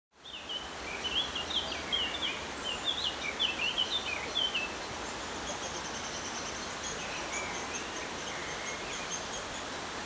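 Woodland birdsong: a songbird sings a quick, varied phrase of up-and-down warbled notes for the first four seconds or so, then fainter, rapid high-pitched notes follow, over a steady background hiss.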